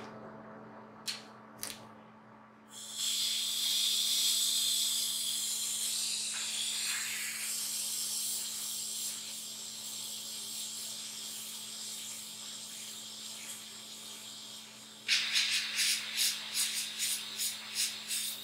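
Gravity-feed airbrush spraying dark paint in a steady hiss for about twelve seconds, then in short quick bursts, about two or three a second, as the model is post-shaded. A couple of small clicks come before the spraying, and a steady low hum runs underneath.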